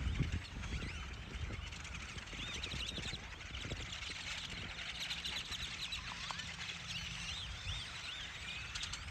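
A huge flock of birds calling all at once: a dense chorus of many overlapping short chirps and whistled calls, over a low rumble at the start.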